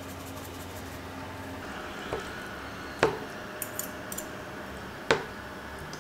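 Metal fork cutting into chicken and knocking against a wooden plate: two sharp clicks about three and five seconds in, a softer one just after two seconds, and small light ticks in between.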